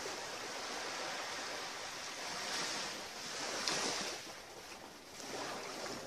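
Small waves lapping and washing against a rocky shoreline. The wash swells and eases in slow surges every couple of seconds.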